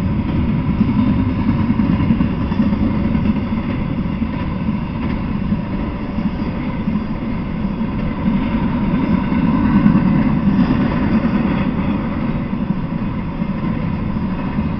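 Intermodal freight train of container well cars rolling past: a steady rumble of steel wheels on the rails.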